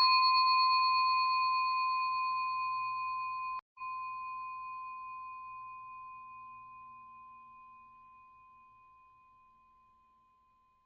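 A single bell-like chime struck once, ringing with a few clear pure tones that slowly fade away over about ten seconds, with a brief break a little under four seconds in.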